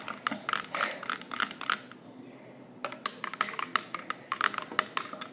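Spoon stirring chocolate sauce into milk, clicking rapidly and irregularly against the side of the cup, with a short break about two seconds in.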